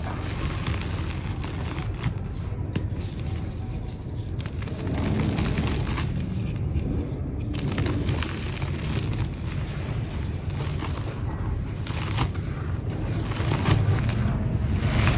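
Dry yellow mud dirt crumbling: a dense run of small crackles and crunches over a low rumble, growing louder near the end.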